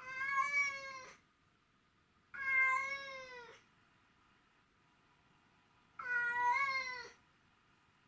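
Domestic cat meowing three times, each a long drawn-out call of about a second that falls in pitch at the end, with a few seconds' pause between calls. The owner takes these calls for crying because the cat misses him.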